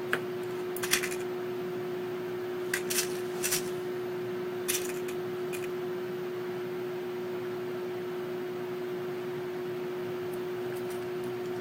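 Small metallic clicks and taps of lock pins and tools as inner and outer pins are fitted into a Mul-T-Lock cylinder, a few scattered strokes with long pauses between them, over a steady electrical hum.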